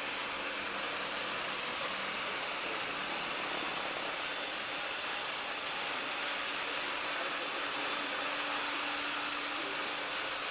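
Automatic floor scrubber-dryer running: a steady, unbroken whoosh from its motors, with a faint low hum beneath.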